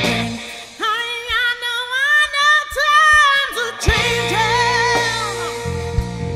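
Live rock band: a woman's lead vocal sings long, wavering held notes while the bass drops out. About four seconds in, the bass and band come back in under another sung phrase.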